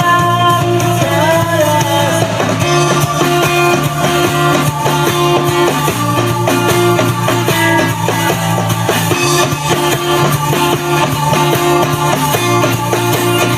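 A rock band playing an instrumental passage: guitar over a steady drum-kit beat, with held notes underneath.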